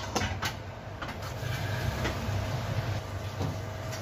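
Lidded frying pan of keema and cluster beans cooking on a gas stove: a steady low rumble with a faint sizzle, and a few light clicks at the start as the steel lid settles on the pan.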